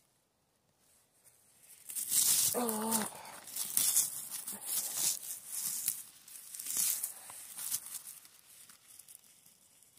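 Dry grass and forest-floor litter rustling and tearing close to the microphone as a hand picks through it, in several bursts from about two seconds in until about eight seconds. A short wavering tone sounds about three seconds in.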